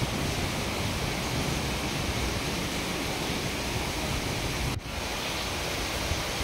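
Heavy rain pouring down, a steady dense hiss that breaks off for an instant about five seconds in.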